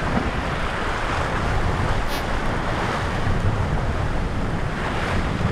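Wind buffeting the microphone over the steady rush of sea water past the hull of a sailboat under way.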